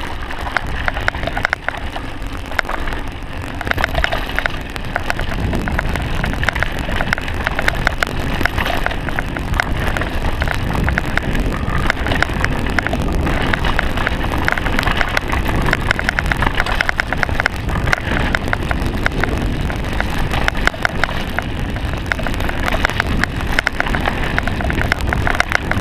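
Mountain bike riding down a dirt trail: wind rushing over a GoPro microphone, with the rumble of knobby tyres on dirt and a constant rattle of the bike over bumps.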